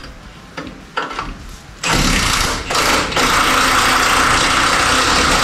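Cordless impact wrench on its highest power setting hammering at a rusted-on fastener in a rear wheel hub. A couple of clicks come first, then the tool starts about two seconds in, eases briefly, and runs on steadily and loudly.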